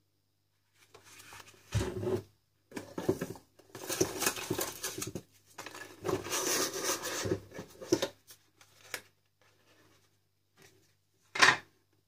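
Cardboard box and packaging being handled: irregular rustling and scraping in several bursts, then one sharp clack near the end.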